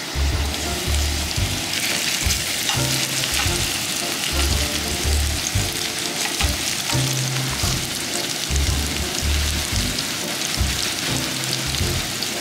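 Vegetable pancake frying in oil in a nonstick pan, sizzling steadily while a spoon pushes and spreads it around the pan.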